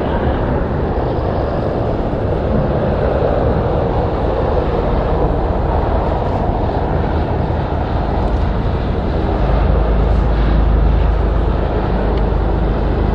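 Jet engine noise from a taxiing airliner: a steady rumble with no clear whine. A deeper low rumble swells about nine seconds in and eases off near the end.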